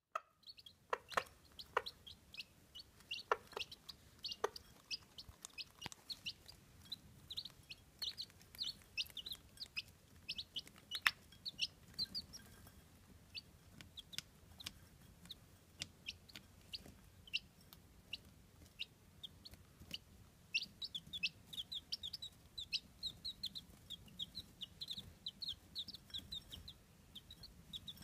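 Chabo bantam chicks peeping continuously in quick, short, high cheeps, with a hen clucking low now and then among them.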